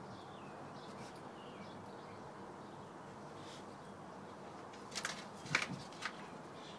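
Faint bird chirps over a steady outdoor background hiss, then a quick cluster of three or four sharp taps and clicks about five seconds in.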